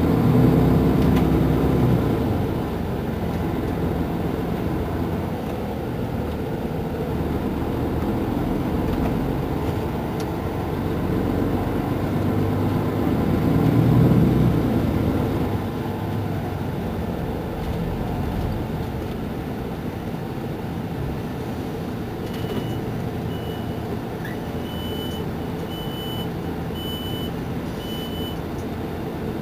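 Mercedes-Benz Intouro coach's diesel engine idling at a standstill, a steady low rumble that swells louder about a second in and again around fourteen seconds. In the last seven seconds a series of short high beeps repeats about once a second.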